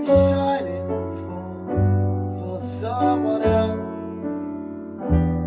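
Piano playing slow held chords, with a new chord struck about every one and a half to two seconds, in an instrumental passage of a slow song.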